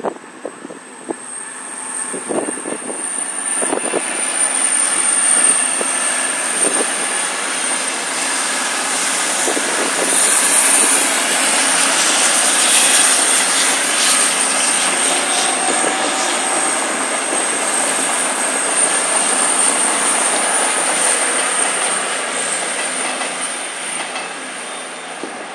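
A Virgin express train running through, growing louder over the first few seconds and easing off near the end, with a high steady whine over the running noise.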